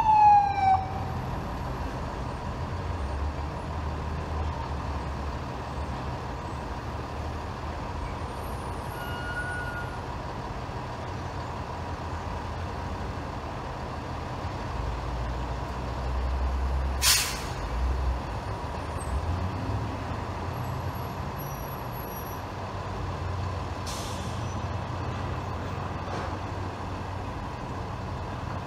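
Truck engines running on a street, a steady low rumble that swells a little past halfway as vehicles move. A loud falling tone fades out in the first second. Two short sharp air-brake hisses come a little past halfway and again about seven seconds later.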